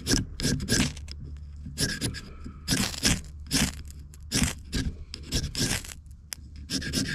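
Ferrocerium flint rod scraped hard with a striker, about a dozen rasping strokes at an uneven pace, throwing sparks to light fire starter bricks.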